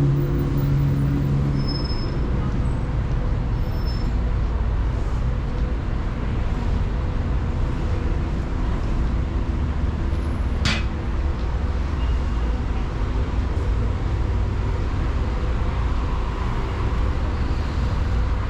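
Street traffic: a steady low rumble of road vehicles. A large vehicle's engine hums near the start and fades away after about two seconds. A single sharp click comes about ten seconds in.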